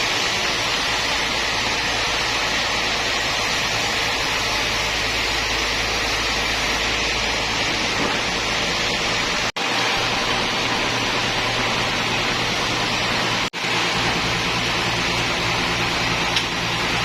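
Sawmill machinery running: a steady, even noise with a low hum underneath, cutting out for an instant twice.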